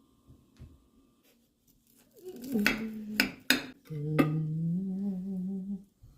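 A low, held hum like a person's "mmm", lasting about two seconds and rising slightly, with a few sharp clicks just before and during it.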